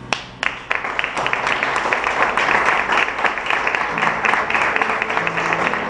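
Audience applause: a few sharp claps just as the music stops, quickly swelling into steady clapping.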